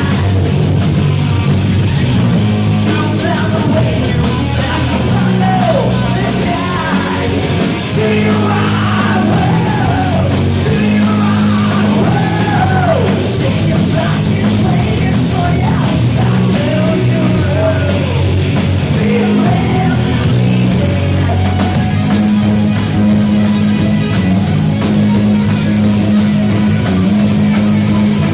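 Loud rock music with bass, drums and a sung or shouted vocal line.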